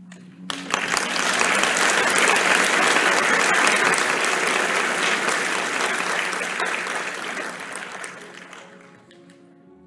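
Audience applause that breaks out about half a second in as a final held note ends. It swells quickly, then slowly fades away near the end.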